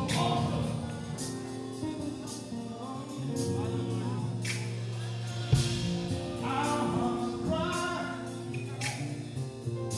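Live gospel music: a praise team of several singers over held chords from a band with guitar, keyboard and drums. One loud drum hit lands about halfway through.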